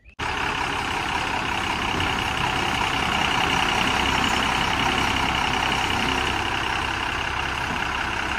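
A loaded Tata lorry's diesel engine running as the lorry moves slowly forward: a loud, steady, even noise that starts suddenly right at the beginning.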